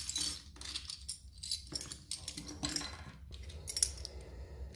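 Metal crown bottle caps clinking and scraping against one another as they are handled, in several short bursts of clatter, with the sharpest clink about four seconds in.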